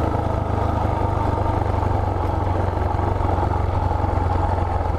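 Motorcycle engine running at a steady pace while under way, its note holding level with no revving.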